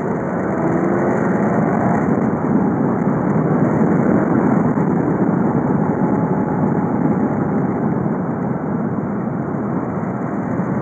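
VW Golf V 2.0 TDI four-cylinder turbodiesel (BKD) driving under way: the engine note climbs for the first couple of seconds as it pulls up through the revs, then settles into a steady run mixed with road noise.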